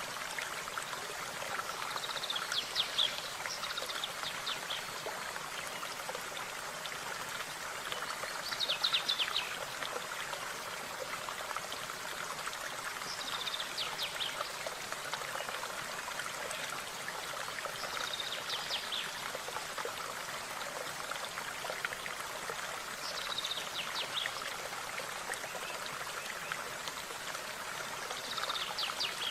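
A stream flowing steadily, with a small songbird repeating a short burst of quick high notes about every five seconds.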